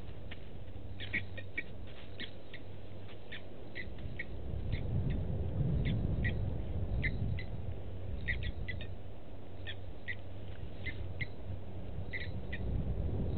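Blacksmith lapwings calling: short, sharp, metallic "tink" notes repeated irregularly, about two a second, over a steady low rumble.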